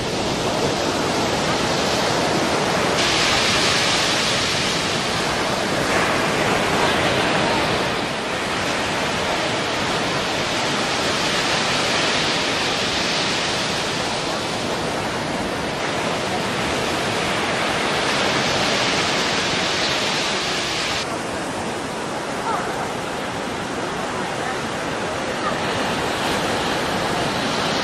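Surf breaking on a sandy beach: a constant wash of noise that swells and eases every few seconds.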